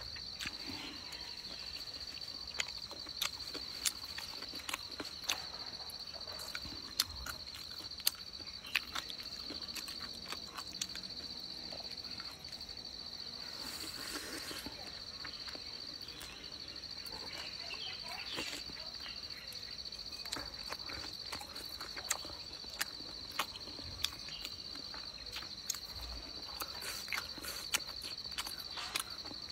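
Wet chewing and lip-smacking clicks from a person eating a soft, glutinous cake in chili sauce, with a bite taken about halfway through. Under it, insects trill steadily at a high pitch.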